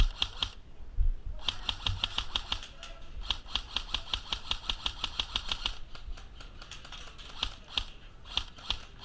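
Airsoft gunfire: rapid bursts of sharp pellet shots at about eight to ten a second, one short burst early on and a longer one in the middle, with scattered single shots near the end.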